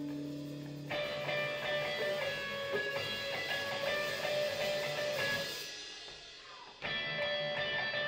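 A live alt-country band plays an instrumental passage: two electric guitars ring out chiming notes over light drums. A held low chord gives way to the guitars about a second in. The playing drops away for about a second after the middle and comes back in.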